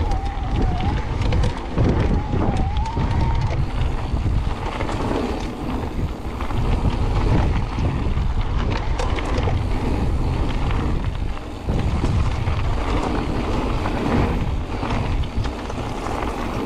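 E-mountain bike rolling fast down a loose gravel track: tyres crunching over stones, the bike rattling, and wind buffeting the camera microphone. A thin wavering whine sounds through the first few seconds.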